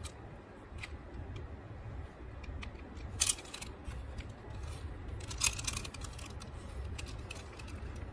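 Small hard clicks and clatter of a diecast toy excavator being handled among other toy cars in a cardboard box, with two louder clusters of clacks about three and five and a half seconds in, over a steady low hum.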